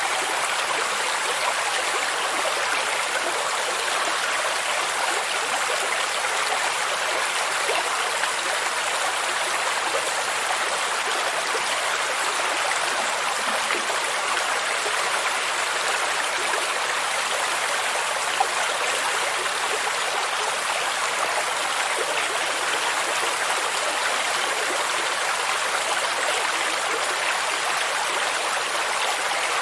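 Stream of water rushing and splashing over rocks, a steady even flow of water noise without pauses.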